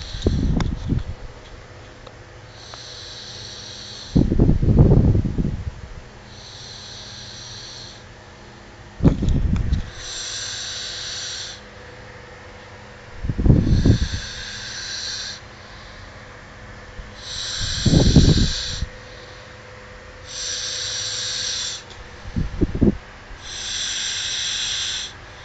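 Snoring in a slow, regular rhythm: six loud, low snores about four and a half seconds apart, alternating with quieter hissing breaths.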